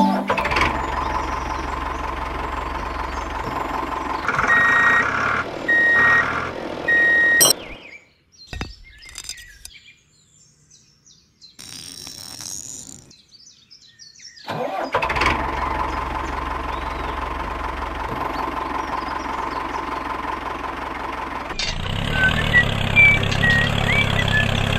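Tractor engine starting and running steadily, with three short beeps about five to seven seconds in. The engine cuts off near eight seconds, leaving only faint clicks, and starts running again around fifteen seconds. A louder, deeper running sound takes over near the end.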